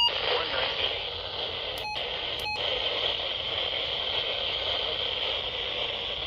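A 12-261 weather alert radio's speaker hissing with static on a channel carrying no broadcast, with two short beeps about two seconds in, fitting its buttons being pressed as the channel is changed.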